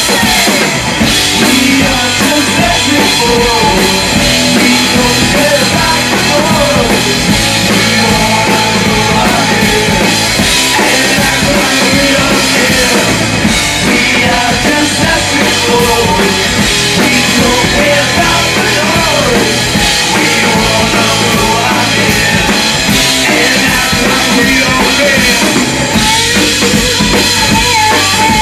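Live rock band playing loud: electric guitar, electric bass and a drum kit.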